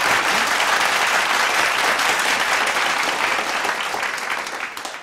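Canned studio-audience applause from a sitcom laugh track: a dense, even clapping that holds steady, then fades away toward the end.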